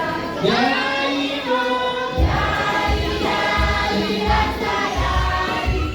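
A group of voices singing together as a choir, with a low, steady beat joining in about two seconds in.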